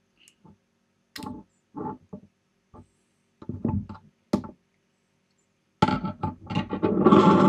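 Short, separate clicks and knocks of small electronic parts being handled: the fan's plug pulled from its header on a circuit board and parts set down on a desk. Near the end a denser run of scraping and knocking as the board, heatsink and fan are slid and moved across the desk.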